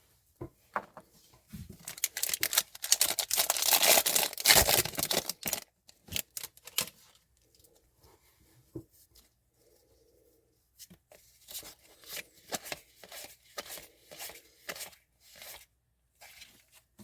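A hockey card pack's wrapper torn open, with a crinkly tearing that starts about two seconds in and lasts about four seconds, followed near the end by a run of light clicks and taps as the cards are handled.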